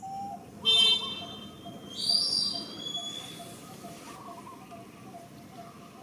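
Two short, loud, high-pitched animal calls, about a second in and about two seconds in, over a steady chain of short low notes repeating about four times a second.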